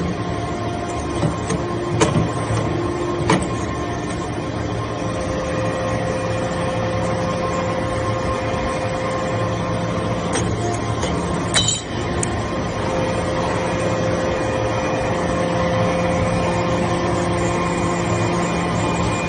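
Hydraulic metal-shavings baler running: a steady machine hum with several held pitched tones, and a higher tone that holds for several seconds twice. A few sharp knocks come through it, the loudest near the middle.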